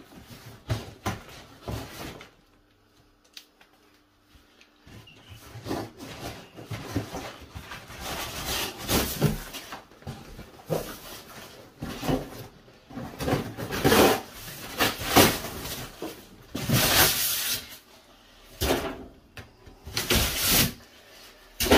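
Large cardboard box being torn open by hand, in irregular ripping and crackling bursts. There is a pause of a few seconds near the start, and the loudest tearing comes past the middle.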